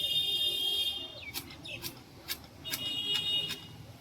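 Hedge being cut with shears: a run of sharp snips, about two a second, starting about a second in. A steady high-pitched whine is heard at the start and again in the second half.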